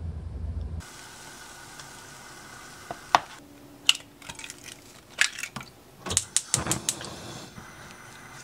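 A low steady drone cuts off under a second in. Then eggs are cracked into an oiled non-stick frying pan: sharp knocks and clicks of shells tapping the pan, in several quick clusters over a faint background hiss.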